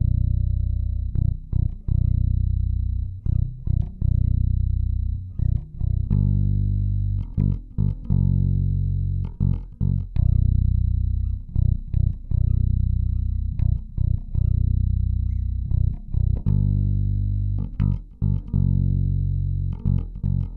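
Warwick Corvette $$ five-string electric bass played fingerstyle with both humbuckers switched to single-coil mode: a phrase of sustained low notes, each cut short by a brief stop before the next.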